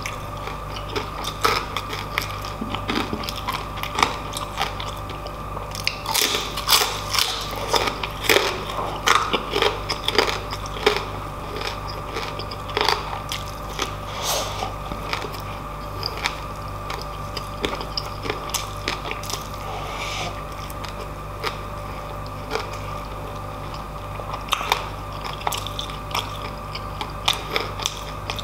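Close-up chewing and crunching of crispy deep-fried pork belly (lechon kawali) with rice, the crisp crackling breaking between the teeth in quick crunches that come thickest about a third of the way in and again near the end.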